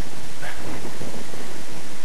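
Blizzard wind blowing hard across the microphone: a loud, steady rushing with gusty low rumble.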